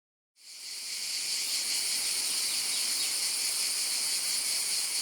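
Steady, high-pitched chorus of insects buzzing, starting abruptly about a third of a second in.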